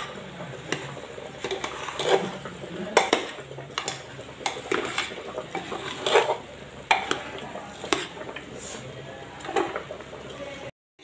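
Metal ladle scraping and clinking against the inside of a metal pressure cooker as rice is stirred in masala, in irregular strokes. The sound cuts out briefly near the end.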